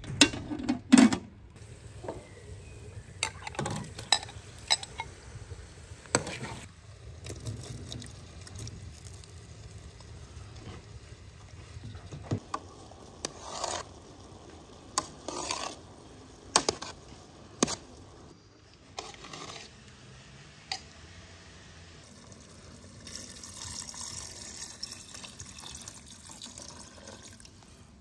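Cooking sounds from large aluminium pots: a metal pot lid clanks loudly about a second in, then a metal spoon knocks and scrapes against the pot as the food is stirred, with the wet sound of liquid being stirred.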